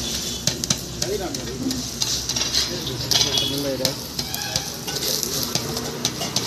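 Paratha frying in oil on a flat iron tawa, sizzling steadily, with a metal spatula scraping and tapping on the griddle in many short clicks as it presses the bread.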